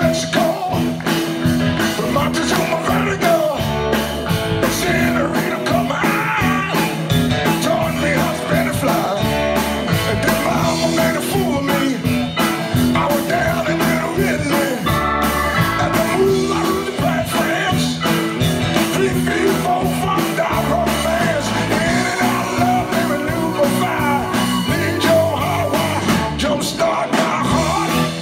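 Soul band playing live: a lead singer over electric guitars and a steady beat.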